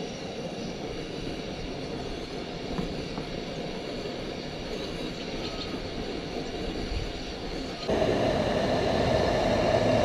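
Portable gas camping stove burning under a stainless steel kettle of water: a steady rushing hiss of the flame with faint steady tones above it, jumping suddenly louder about eight seconds in.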